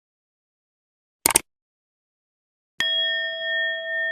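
A quick whoosh sound effect about a second in, then a single bell-like chime struck near the end, ringing on with a slow waver.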